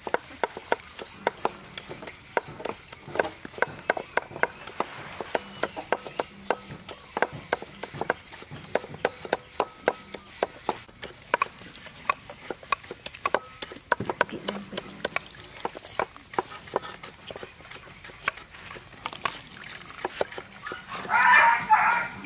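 Hands kneading and squeezing wet grated coconut with water in a steel bowl to make coconut milk: wet squelching with irregular sharp clicks. Near the end comes a short, louder splash and trickle as the milk is wrung out through a plastic strainer into a pot.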